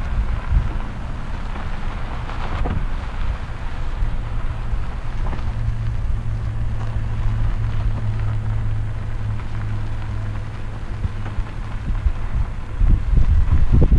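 Wind buffeting the microphone over a steady low vehicle hum; the buffeting grows louder near the end.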